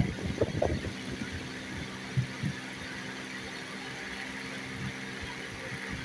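Indian ringneck parakeet pecking and nibbling at a plastic mobile phone: a quick run of soft knocks in the first second and two more a little after two seconds in. A steady low hum runs underneath.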